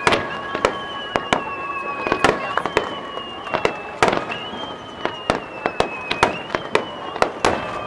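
Aerial firework shells bursting in a rapid, irregular barrage of bangs during a fireworks finale. Underneath, a high whistling tone slides slowly down and jumps back up every second or two.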